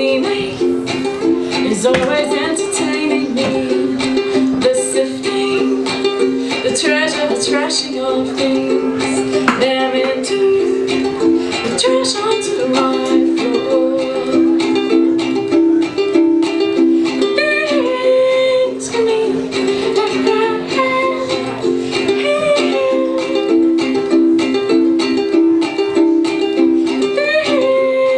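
Ukulele strumming chords in a steady rhythm, with a sliding melody line played or sung over it.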